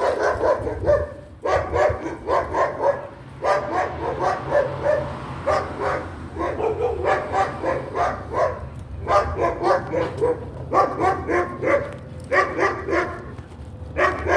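Dog barking and yapping in rapid runs of quick barks, each run lasting a second or two, with short pauses between.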